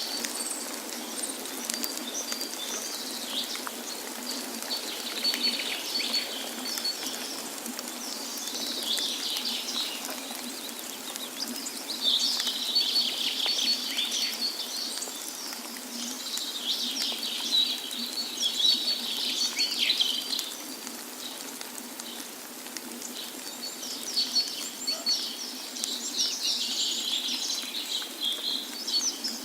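A chorus of small songbirds chirping and twittering in repeated bursts, with a fast run of evenly spaced high notes coming back several times, over a steady rush of flowing water.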